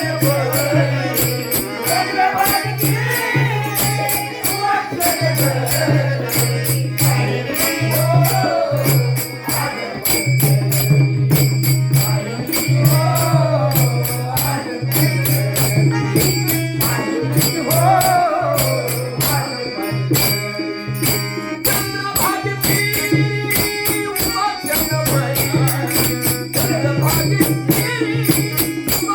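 Devotional folk music: a melody gliding up and down over a steady low drone, with fast jingling percussion keeping the beat throughout.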